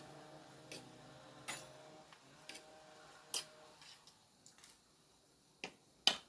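Scattered light clinks of cutlery against plates as grilled fish is eaten, about half a dozen sparse taps with the loudest near the end, over a faint low hum that fades out about four seconds in.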